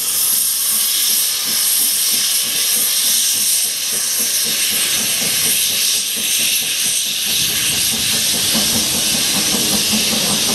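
Industrial saddle-tank steam locomotive pulling away with its cylinder drain cocks open, steam hissing loudly and steadily. A lower rumbling noise joins about seven seconds in.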